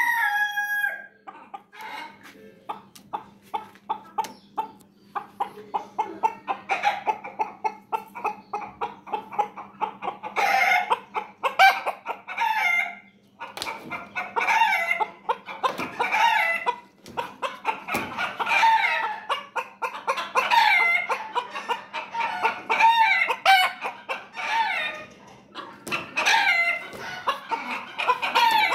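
Chickens clucking: a quick string of short clucks, then louder, longer calls that rise and fall in pitch through the second half.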